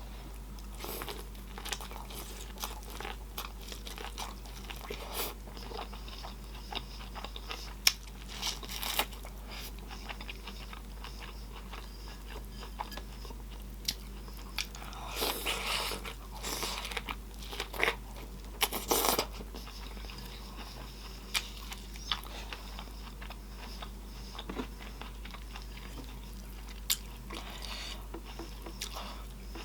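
Close-up eating sounds: bites into corn on the cob with wet chewing and lip smacking, a steady run of small crunches and smacks with louder wet bursts around the middle.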